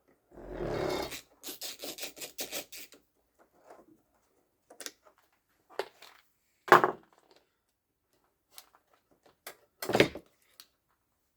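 Screws being undone on the plastic housing of a Honda Miimo HRM3000 wheel motor: a scrape, then a quick run of clicks from the hand tool in the first few seconds. After that come scattered knocks and taps as the housing and parts are handled, with a sharp knock a little past halfway and another near the end.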